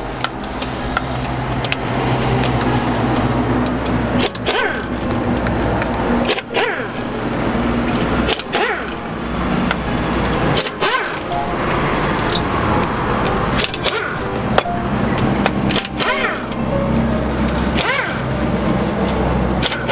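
Background music: sustained low chords that change every few seconds, with a sharp percussive hit roughly every two seconds.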